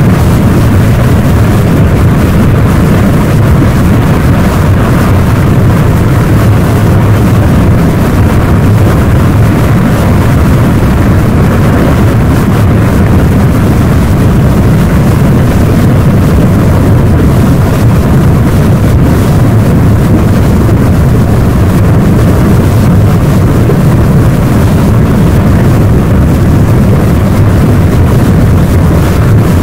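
Popocatépetl's explosive eruption heard as a loud, deep, steady rumble that never lets up while the ash column rises.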